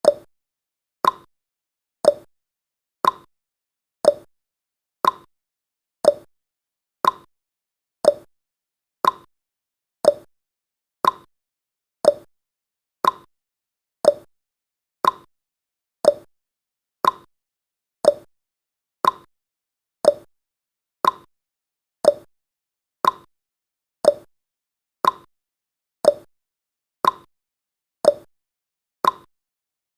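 Clock-tick sound effect: one short, sharp tick every second, each dying away quickly, counting off the seconds of a countdown timer.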